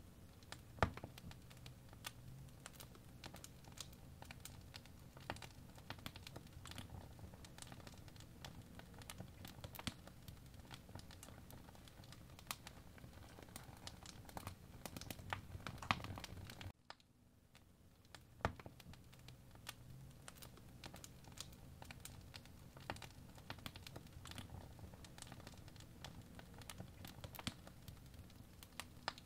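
Irregular light clicks and crackles over a low steady rumble, cutting out suddenly for about a second and a half just past the middle.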